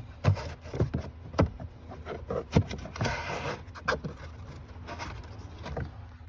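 Old cabin air filter being pulled out of its plastic housing: a series of plastic clicks and knocks, with a scraping rustle about three seconds in, over a low steady hum.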